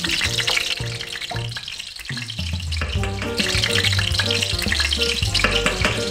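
Background music with a bass line that steps in pitch, over the steady noise of a steel pot of water boiling with chickpeas in it. A wooden spoon stirs the pot in the second half.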